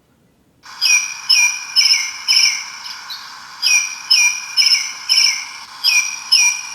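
Bird alarm clock sounding its tweet alarm: identical high chirps in runs of about four, roughly two a second, with short pauses between runs, starting just under a second in.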